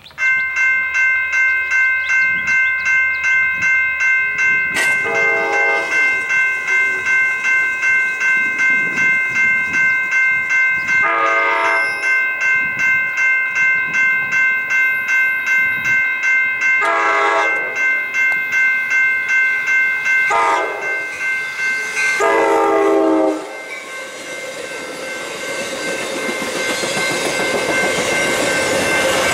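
Grade-crossing warning bell ringing about twice a second while an approaching Amtrak Capitol Corridor train sounds its horn five times, the last four in the long-long-short-long crossing signal. The bell stops just before the last blast, and the train then passes with a rising rumble of wheels on rail.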